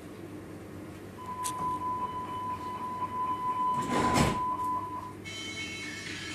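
Hamburg U-Bahn door-closing warning: a steady high beep sounds for about four seconds while the doors slide shut with a loud rush about four seconds in. A cluster of high steady tones starts just before the end.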